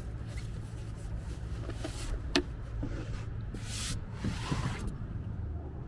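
Rustling and handling noises with one sharp click about two seconds in, over a steady low hum.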